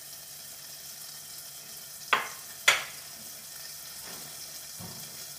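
Oil sizzling steadily in a pot after frying meatballs, with two sharp knocks a little over two seconds in, about half a second apart.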